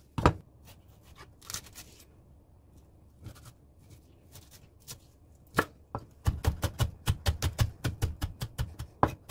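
Kitchen knife cutting green chili pepper on a wooden cutting board. There is a sharp knock at the start and a few scattered cuts, then from about six seconds in a fast, steady run of chopping strikes as the chili is minced.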